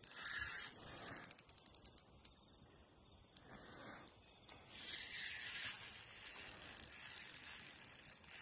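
Fishing reel clicking and ratcheting while a hooked carp is played on a spinning rod: a fast run of fine clicks about a second in, then sparser clicks. Faint throughout.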